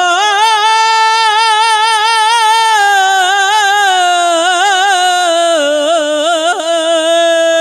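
Kavishari ballad singing: one long held sung 'ho' in a high voice, with no instrument heard. The note rises at first, holds with a wavering vibrato, then slides slowly lower through the second half.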